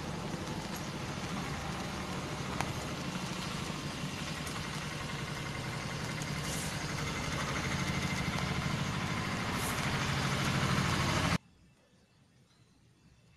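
Steady rain noise with a low hum underneath, slowly growing louder, cutting off abruptly about eleven seconds in to quiet room tone.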